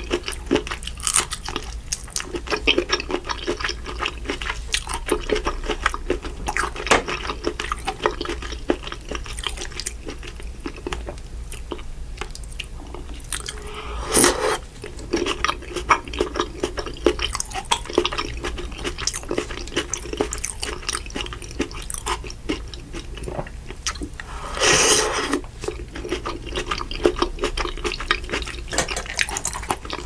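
Wet chewing and lip-smacking of boiled shrimp in butter sauce: dense small clicks and squishes throughout, with two louder, longer wet noises about halfway through and near the end.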